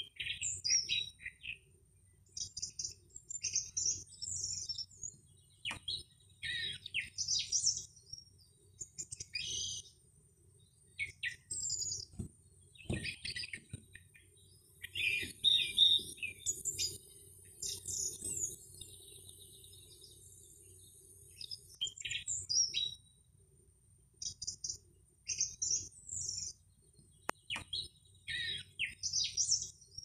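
Birds chirping and singing in short, high phrases that come every second or two with brief pauses between them.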